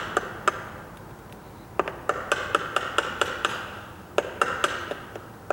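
Hammer tapping a wood chisel to cut a deadbolt mortise into a door edge: light, sharp taps in runs, about four a second, with a pause of about a second near the start.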